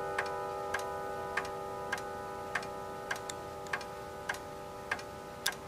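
Howard Miller Jennison clock's chimes still ringing after the two o'clock strike, several tones slowly dying away. Its movement ticks steadily underneath, a little under two ticks a second.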